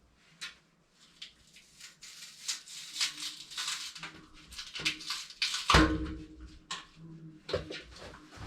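Clicks and scrapes from a sliding glass shower door panel being hung by its rollers on the top rail, with one loud knock that rings briefly about six seconds in.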